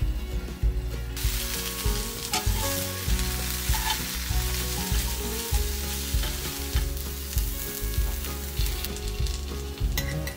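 Asparagus spears sizzling as they pan-fry; the sizzle gets much louder about a second in, when the glass lid comes off, and metal tongs turn the spears in the pan.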